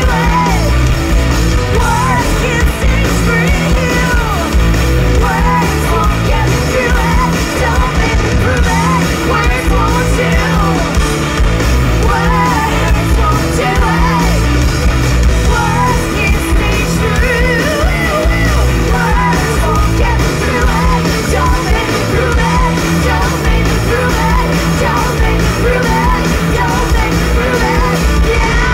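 Alternative rock band playing live: distorted electric guitars, bass and drums, with a woman's voice singing and yelling over them.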